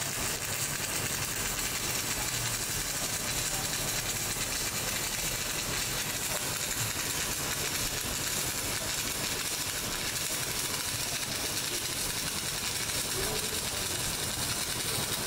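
Electric welding arc burning with a steady, even hiss.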